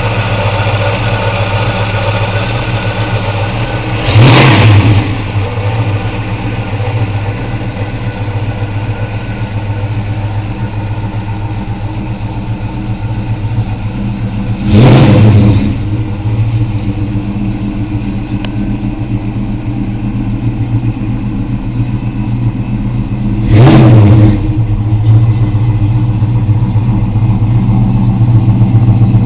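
Chevrolet 350 cubic-inch small-block V8 with a Weiand supercharger, headers and Flowmaster exhaust, idling steadily and blipped three times, about ten seconds apart. Each rev rises and falls in about a second.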